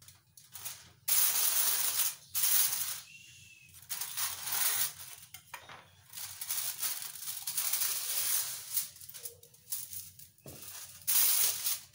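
Aluminium foil crinkling and rustling in bursts as it is handled and pressed in to line a baking dish.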